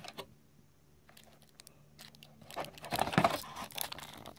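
Packaging handled in a cardboard box: clear plastic wrap and the box tray crackle and rustle as a sat nav and its windscreen cradle are lifted out. It is quiet at first, then a dense cluster of crackles and clicks comes in the second half.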